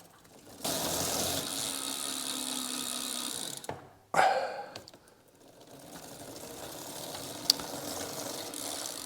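E-bike rear wheel spinning on a stand with a steady whir and ratchet-like clicking, braked to a sudden stop about four seconds in, then spun up again: new Tektro brake pads being bedded in.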